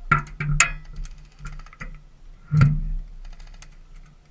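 Airsoft guns firing: a few sharp cracks close together at the start and a louder one about two and a half seconds in, then bursts of rapid clicking, over a steady low hum.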